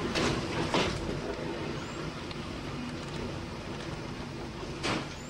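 Train running along the track: a steady rumble and rattle of wheels on rail, with sharp clacks over rail joints twice near the start and once near the end.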